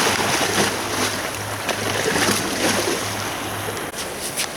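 Sea surf washing onto a beach, with wind on the microphone. A low steady hum stops near the end, followed by a few short clicks.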